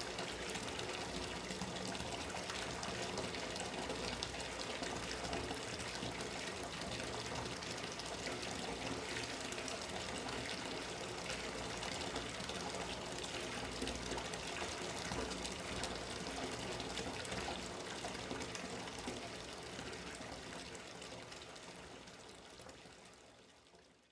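Water running steadily from a bathtub tap into the tub, fading out near the end.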